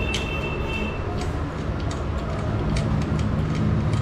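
Steady low engine rumble in the background, with light metallic clicks of engine parts being handled and fitted and a brief high squeak in the first second.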